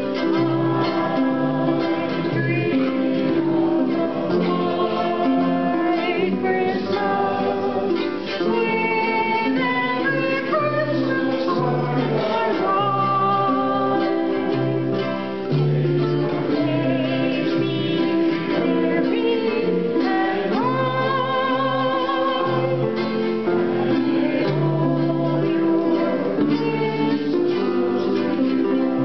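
Live acoustic performance: several ukuleles strummed together with voices singing a song.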